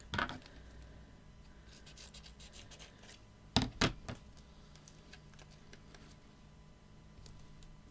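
Paper crafting by hand: small paper pieces and foam pads rustling and scratching on a work surface, with a sharp click just after the start and two louder clicks in quick succession about three and a half seconds in.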